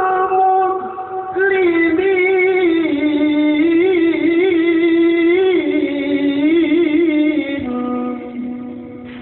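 A man chanting the Qur'an in ornamented melodic tilawah style, drawing out the close of the verse 'wa ana awwalul muslimin' in long held notes with wavering turns. The voice steps lower near the end and fades out.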